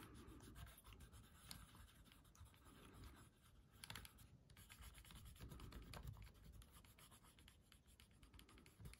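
Faint scratching of a watercolour pencil tip stroking back and forth over thin wood as it colours.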